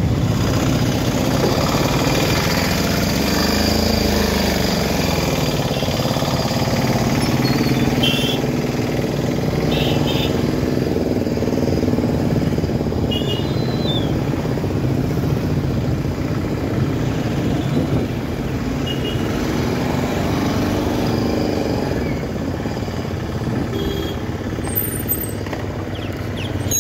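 Busy street traffic heard from a bicycle in its midst: motorcycle and auto-rickshaw engines running close by, one passing with a rise and fall in pitch in the first few seconds, over a steady road rumble. A few short horn beeps come about eight, ten and thirteen seconds in.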